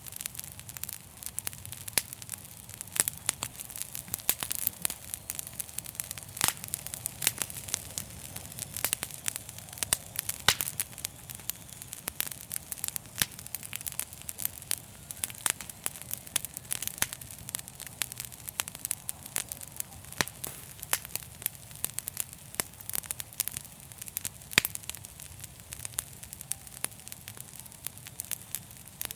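Campfire burning: wood crackling and popping in many irregular sharp snaps, over a steady low rumble of the flames.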